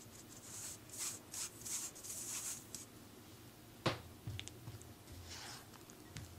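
Flour and baking powder shaken through a mesh sieve, a quick run of rasping strokes. About four seconds in comes a sharp knock, then soft scraping as a rubber spatula starts folding the flour into butter batter in a glass bowl.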